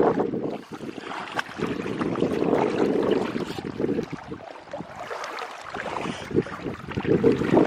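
Wind rumbling on the microphone in gusts that die away briefly a few times, with scattered small knocks and rustles.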